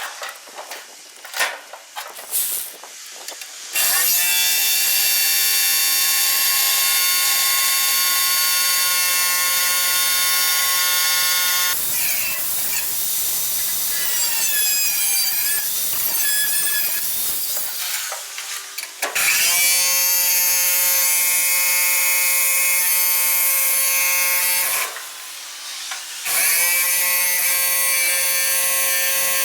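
Electric power tool cutting through steel plate: a high, steady whine run in three long spells of several seconds each with short pauses between, the second starting with a rising whine as the tool spins up.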